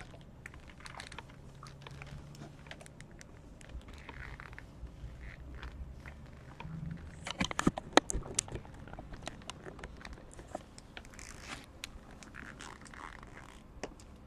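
Long acrylic claw nails tapping and scratching, with soft scrapes and rustles and a quick run of sharp clicks about halfway through, the loudest part.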